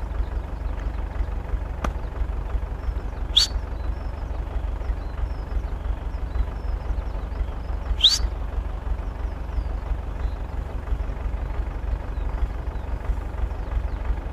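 Tractor engine running steadily with a low rumble. A faint click comes about two seconds in, and two short, sharp high-pitched squeaks come about three and a half and eight seconds in.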